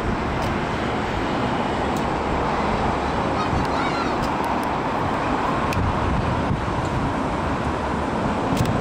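A distant fireworks display: far-off shell bursts run together into a steady rolling rumble, with a few faint crackles heard here and there.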